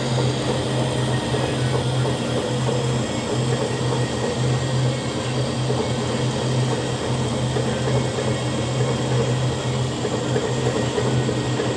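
Metal lathe running: a steady mechanical hum with a strong low drone that wavers unevenly.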